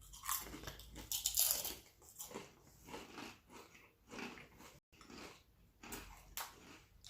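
Crispy Lay's potato chips being bitten and chewed by two people: a loud crunch about a second in, then repeated crunching chews.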